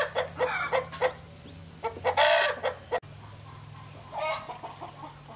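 Chickens clucking and calling loudly over a low steady hum, with two strong calls in the first three seconds. The sound changes abruptly about three seconds in, and one fainter call follows.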